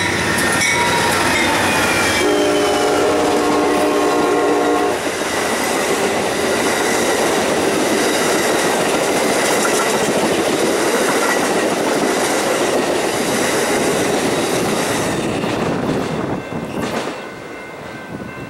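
Amtrak P42DC diesel locomotives leading the California Zephyr past at speed, blowing the horn as they go by: its pitch drops, then it holds a steady chord until about five seconds in. The rumble and clickety-clack of the double-deck Superliner cars follow, fading out near the end.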